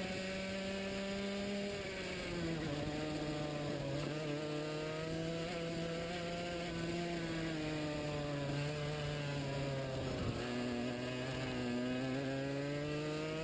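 Racing kart engine running at speed, heard from on board; its pitch drops as the kart slows for a corner about two seconds in and again near ten seconds, then climbs back as it accelerates out.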